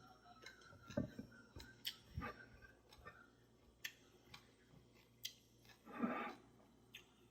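Open-mouthed chewing: wet smacking and clicking of lips and tongue at irregular moments, with a few soft thuds and one louder, longer chew about six seconds in.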